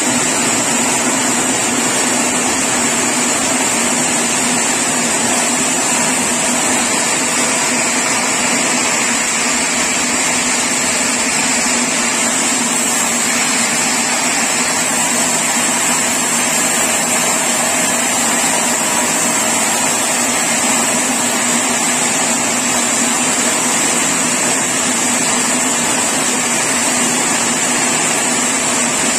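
Sawmill machinery running steadily at a constant level, with a continuous high whine over a lower drone.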